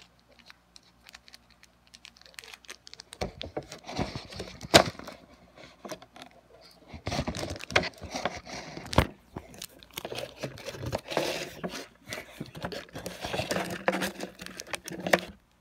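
Plastic instant-ramen packaging crinkling and rustling as it is handled and torn open, with a couple of sharp knocks about five and nine seconds in.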